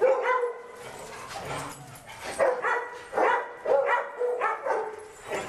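Big dogs barking: one bark at the start, then a quick run of barks from about two and a half seconds in.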